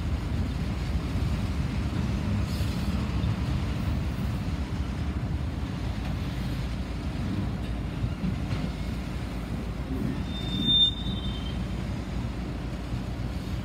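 Freight train boxcars rolling past, a steady low rumble of steel wheels on rail, with one brief high squeal about eleven seconds in.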